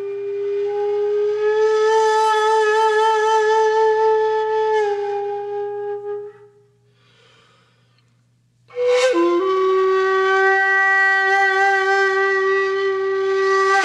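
Background music: a flute-like wind instrument playing long, slow held notes with a slight waver. There is a pause of about two seconds in the middle, then a new note starts sharply, slides down and holds.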